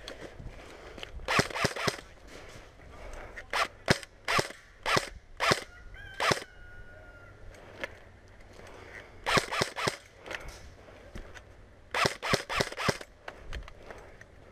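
Airsoft guns firing: a quick burst of sharp cracks about a second and a half in, scattered single shots in the middle, then two more quick bursts, one around the ninth second and one near the end.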